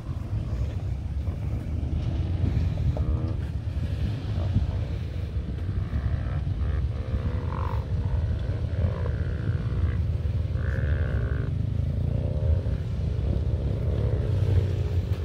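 2021 Toyota Tacoma TRD Off Road's engine running low and steady as the truck crawls slowly over dirt ruts, its pitch wavering a little.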